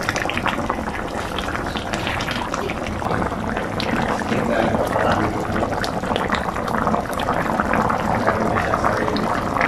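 Miso and salmon sinigang broth boiling hard in a wide pan, a steady bubbling with many small pops, brought to the boil before seasoning.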